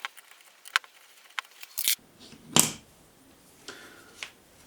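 Sharp metal clicks and taps of a hand tool and small screws as the four screws holding a mini mill's fine-adjust assembly are taken out, with a louder clatter about two and a half seconds in.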